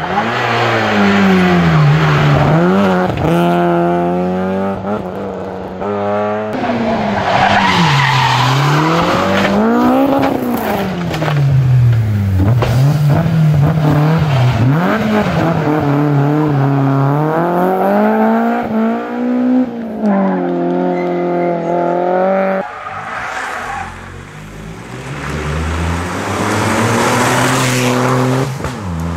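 Several small front-engined rally hatchbacks, among them a Citroën Saxo and a Peugeot 208, driven flat out on a tarmac stage one after another. The engines rev up and drop sharply again and again through gear changes and corners.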